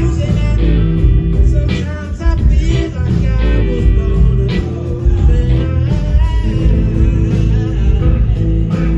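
Live blues-rock band playing loud: electric guitar, bass and Gretsch drum kit, with a male lead voice singing.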